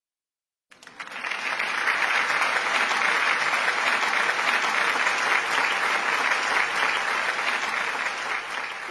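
A large crowd applauding steadily. The clapping starts about a second in and eases off a little near the end.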